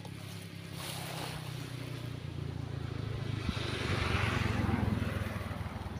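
A motor vehicle driving past on the road, its engine hum and tyre noise growing louder to a peak about four to five seconds in, then fading.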